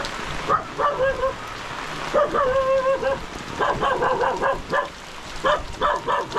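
A dog barking in short repeated runs over steady heavy rain, with one longer drawn-out call about two seconds in.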